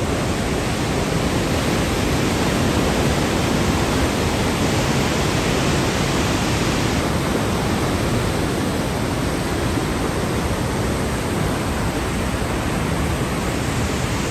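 Merced River whitewater rushing over its rapids: a steady, loud rush of water.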